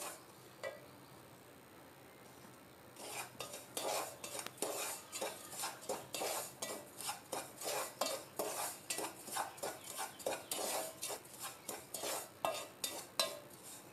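Wooden spatula stirring and scraping dry puttu (rice) flour around a non-stick pot while it is lightly roasted on a low flame, in short, even strokes about two or three a second, starting about three seconds in.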